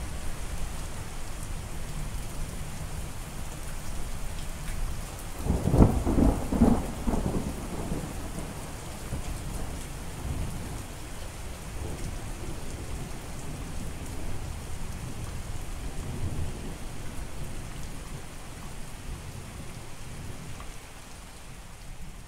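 Steady rain falling on water, with a loud peal of thunder about six seconds in and fainter rumbles of thunder afterwards.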